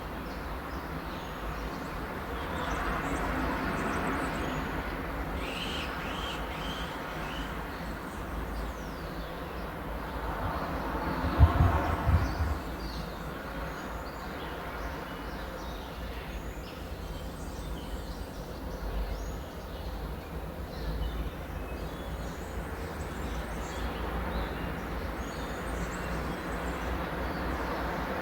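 Birds chirping and calling throughout, many short high notes, over a rushing noise that swells and fades a few times. A brief low thump comes about eleven and a half seconds in.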